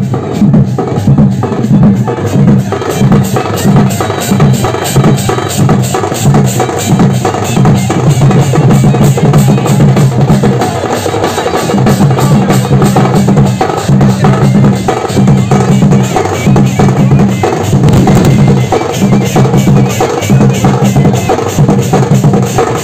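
Traditional drums beating a fast, steady rhythm to accompany a Gondi folk dance, with a deep pulsing beat under sharper strokes. The deep beat drops out for a moment about halfway through, then picks up again.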